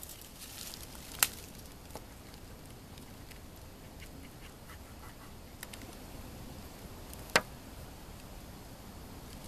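Knife and fork cutting steak on a plastic cutting board: two sharp clicks of the utensils against the board, about six seconds apart, with faint small ticks of cutting in between.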